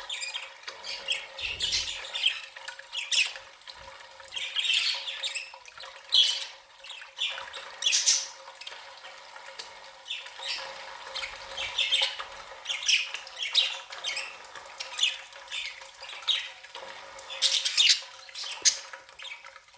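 Budgerigars chattering: a steady stream of short chirps and squawks, with a faint steady hum beneath.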